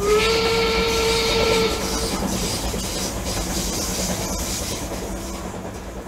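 A toy steam locomotive's whistle sounds one steady tone for about two seconds over a steam-like hiss. A steady hissing running noise follows and slowly fades.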